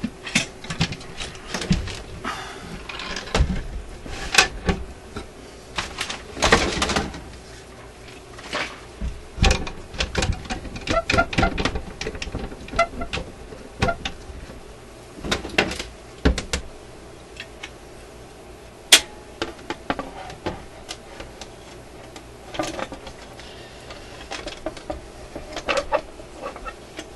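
Irregular clicks, knocks and clatter from hands handling a wooden radio-phonograph cabinet and its record-player mechanism, with a few louder thuds among them.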